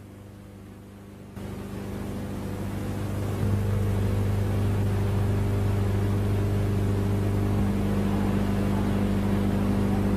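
A steady low hum with several even overtones and a layer of hiss, stepping louder about one and a half seconds in and again about three and a half seconds in, then holding level.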